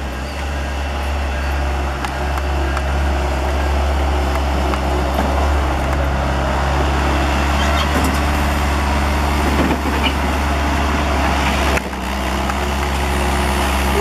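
Bobcat S130 skid-steer loader's diesel engine running steadily at close range as the machine manoeuvres by the gravel pile, a deep, even rumble that holds its pitch.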